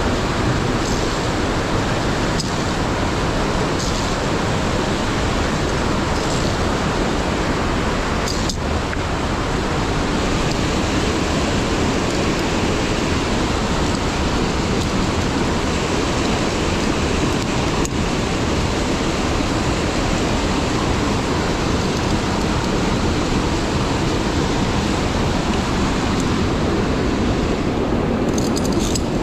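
Steady rush of a mountain stream and waterfalls in a narrow rock gorge, an even roar of water with a few faint clicks.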